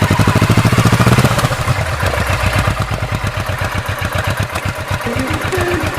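Kawasaki Vulcan S 650 parallel-twin engine running through its stock exhaust with an even pulse. It is louder at first and eases off to a lower, steady beat after about a second.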